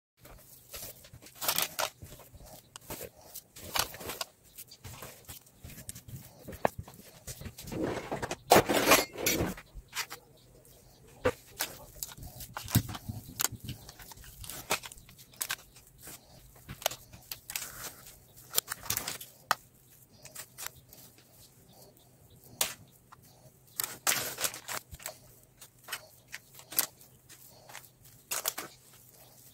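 Irregular scrapes and clicks of a kitchen knife spreading cream over a sheet cake and knocking against the baking tray, loudest about eight to nine seconds in, over a faint steady low hum.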